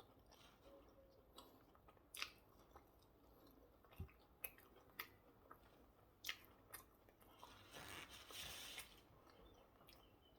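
A person chewing and crunching food close to the microphone, faintly, with scattered sharp crunches and a longer rustling crunch from about seven to nine seconds in.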